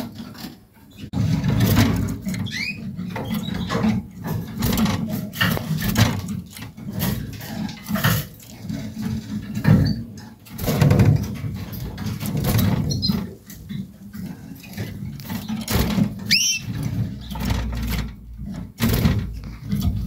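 Close, irregular rustling and scratching with soft knocks, among nesting fibres, with a few brief high chirps from a canary, the clearest about three-quarters of the way through.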